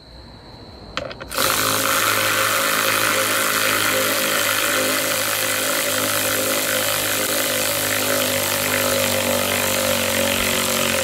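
Handheld power drill running steadily at full speed for about ten seconds, starting with a click a second or so in and cutting off suddenly at the end.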